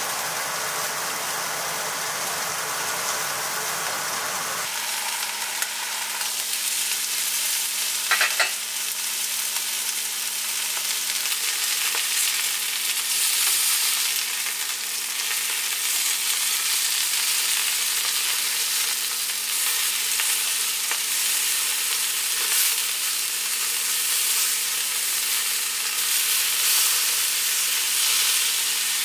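Chicken and green onion yakitori skewers sizzling in an iron frying pan from about five seconds in, a steady hiss over a low hum; before that, a fuller steady noise. A brief clink or ring a few seconds after the sizzling starts.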